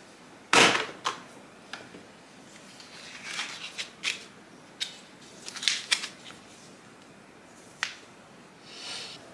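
Handling noise: a loud sharp knock about half a second in, then scattered clicks and short bursts of rustling.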